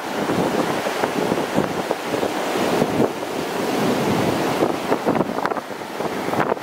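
Heavy tropical-storm surf breaking and rushing up the beach in a continuous wash, swelling and easing as the waves come in. Gusty wind buffets the microphone.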